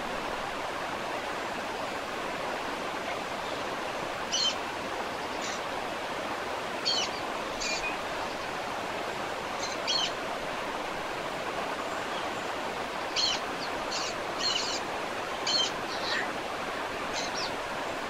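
Steady rush of a waterfall, with about ten short, high bird chirps scattered over it.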